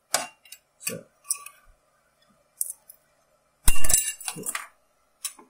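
A series of short clinks and scrapes against a 3D printer's build plate as the finished print is scraped off it, with one louder knock a little under four seconds in.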